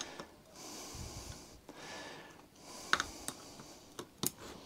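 Light metallic clicks of two ring spanners on a rusted nut and bolt of a lawnmower gearbox casing as they are worked by hand, with a few sharp ticks about three and four seconds in over a faint rustle.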